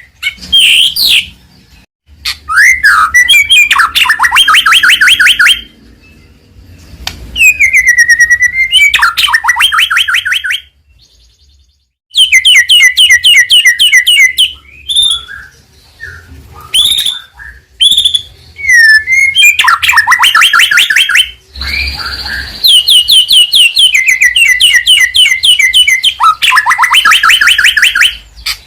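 White-rumped shama (murai batu) singing loudly in phrases of one to three seconds, with short pauses between them. The phrases are mostly fast rattling runs of repeated notes, mixed with a few slurred, gliding whistles.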